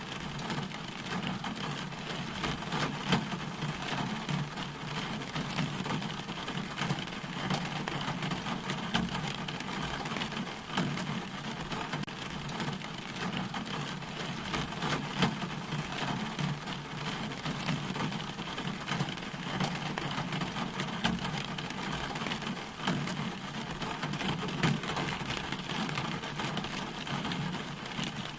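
Steady rain, a dense patter of drops, with a constant low hum beneath it.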